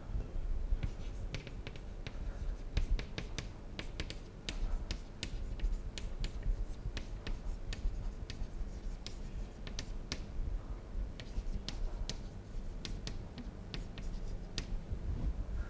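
Chalk writing on a chalkboard: a string of irregular short taps and scratches as the chalk strikes and drags across the board, word by word.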